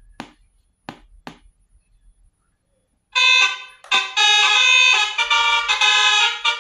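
Home-made telolet horn: a small sound module plays the recorded 'telolet' bus-horn tune, a loud melody of stepped horn notes starting about three seconds in. A few sharp clicks come before it.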